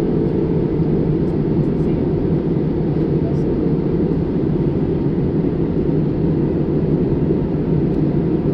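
Steady low rush of a jet airliner in flight, engine and airflow noise heard from inside the cabin beside the wing.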